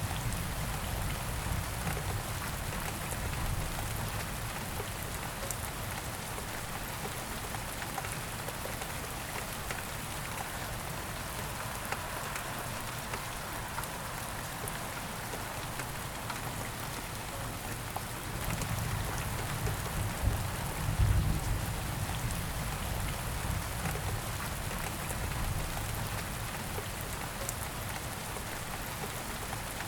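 Steady rain falling. A low rumble swells for a few seconds about two-thirds of the way through.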